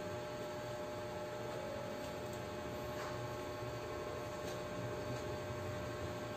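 Room tone: a steady electrical hum with a faint hiss, and a few faint ticks.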